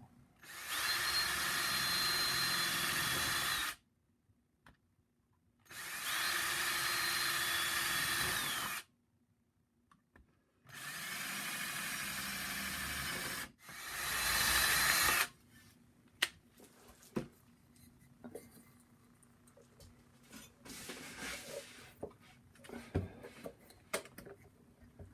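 Power drill boring holes through a hammered copper sheet: four steady runs of about three seconds each, the last one shorter and rising in level. Light clicks and taps follow in the second half.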